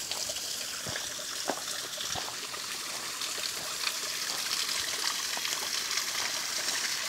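Small waterfall trickling and splashing over rock ledges, a steady watery hiss that grows a little louder as it is approached. A few soft footsteps on the dirt trail in the first couple of seconds.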